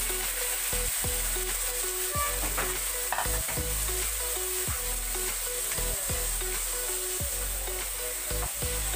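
Raw chicken pieces sizzling in hot oil in a wok over onion, garlic and ginger, with a spatula scraping and stirring against the pan.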